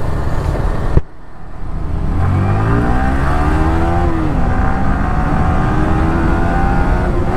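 Motorcycle engine pulling away and accelerating. Its pitch climbs, drops once at a gear change, then climbs again, with wind rumble on the helmet microphone. There is a sharp knock about a second in.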